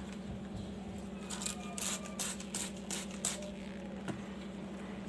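Soft handling rustles and scrapes as a sponge cake layer with its butter paper still on is set down on a layered cake: a quick run of short crinkles starting about a second in, lasting about two seconds, with one more near the end. A steady low hum runs underneath.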